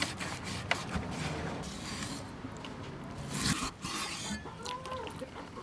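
A large knife slicing through raw pork on a thick wooden chopping board: a series of scraping cuts, with the blade knocking the board now and then.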